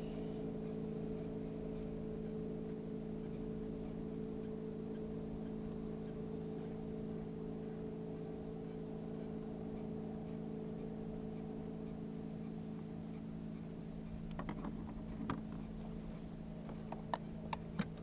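Small jon boat's motor running steadily under way, a constant hum with fixed tones. A few sharp clicks near the end.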